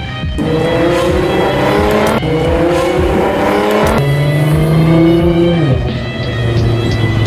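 Car engine revving up through the gears: its pitch rises, drops at a gear change about two seconds in, climbs again, holds, then falls away near the end.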